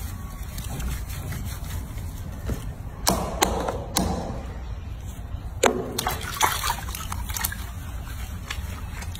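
Bath water splashing and sloshing in a sink as hands lather and scrub a small wet monkey, with several sharp knocks partway through.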